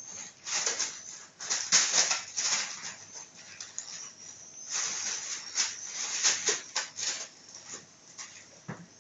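A plastic bag crinkling and rustling in irregular bursts as a kitten plays in and with it, with a faint steady chirping of crickets underneath.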